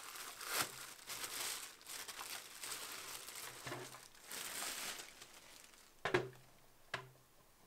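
Clear plastic bag crinkling and rustling as a vacuum cleaner's floor brush head is unwrapped from it by hand, for about five seconds. Then two sharp knocks about a second apart as the plastic brush head is handled.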